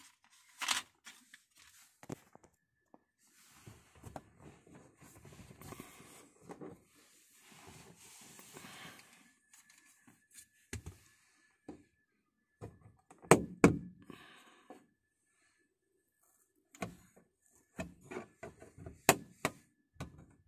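Handling noise from a car's plastic interior light lenses being worked by hand: scattered clicks and knocks with rustling in the first half. Two sharp, loud clicks come just past the middle, and a run of clicks near the end as a thin metal pick pries at the map light lens.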